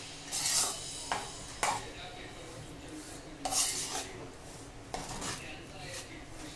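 Metal spoon scraping and stirring gram flour as it roasts in ghee in a frying pan: about five short, irregular scrapes of spoon against the pan, over a steady low background hum.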